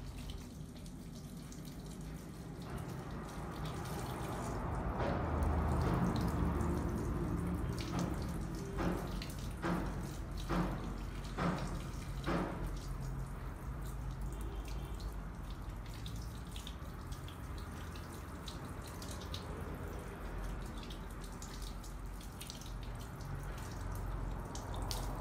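Water trickling and dripping at a salon shampoo basin, swelling a few seconds in, with a short run of light clicks from about eight to twelve seconds in.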